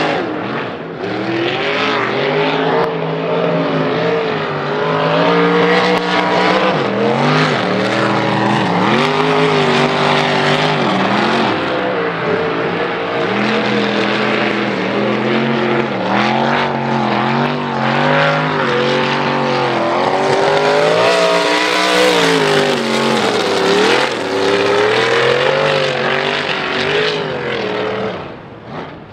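High-horsepower mud race truck engine revving hard, its pitch climbing and dropping again and again as the driver accelerates and lets off through the course. The level drops near the end.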